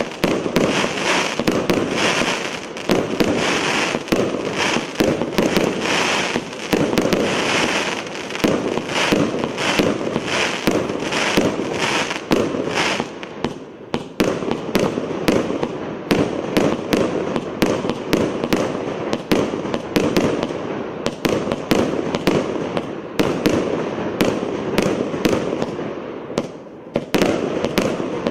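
600-shot, 1-inch fireworks cake firing shot after shot in rapid succession, launches and bursts running together, with two brief lulls.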